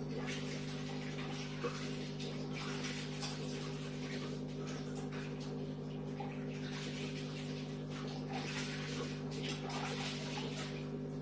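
Aquarium filter running: a steady electric hum under constantly bubbling, splashing water.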